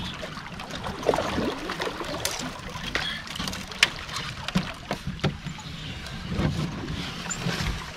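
Twigs and branches rustling, scraping and snapping as a canoe is forced through overhanging brush, with sharp cracks and knocks scattered irregularly throughout.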